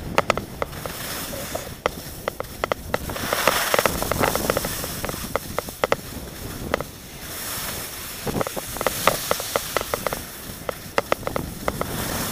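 Wind rushing over an action camera's microphone and edges scraping across packed snow on a downhill run, the hiss swelling and easing, with many sharp clicks and knocks in clusters.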